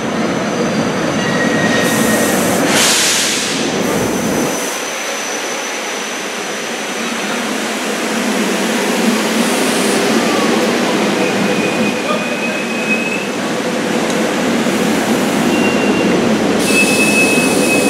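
SEPTA Silverliner IV electric multiple-unit train running into an underground station and slowing along the platform, a steady echoing rumble of wheels and motors. There is a short hiss about three seconds in, and thin high squeals as it brakes in the second half.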